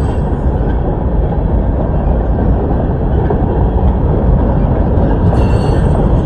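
Freight train cars rolling past at close range: a steady heavy rumble of steel wheels on rail, with a brief high squeal about five seconds in.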